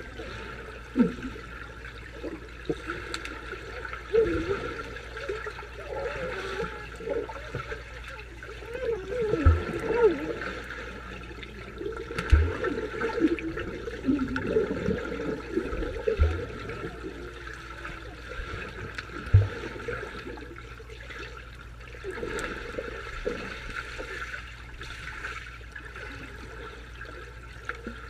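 Water heard from under the surface: a steady wash with wavering bubbling sounds, and four dull low thumps spread through the middle of the stretch.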